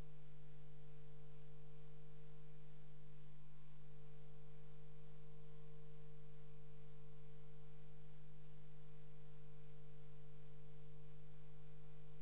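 A steady, unchanging hum made of a few fixed tones, the low one loudest, with nothing else heard.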